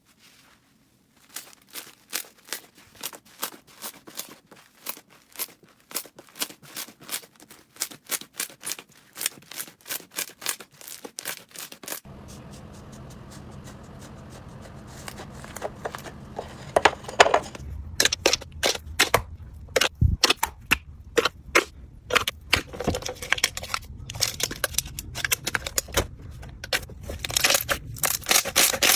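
Slime being squished and pressed by hand, giving rapid popping and crackling clicks. About twelve seconds in, the sound changes abruptly to a different slime with a low hum behind it and louder, more irregular pops that grow into dense crackling near the end.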